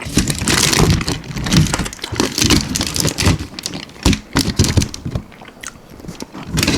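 Close-miked eating of almond-flour-breaded baked chicken wings: biting and chewing with irregular crunches and wet smacking.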